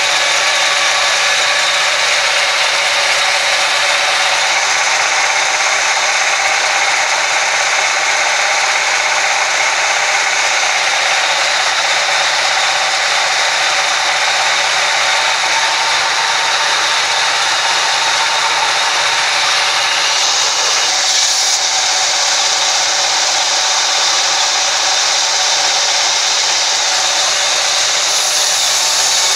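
Sawmill band saw running and cutting lengthwise through a large log: a loud, steady sawing noise that grows a little hissier about two-thirds of the way through.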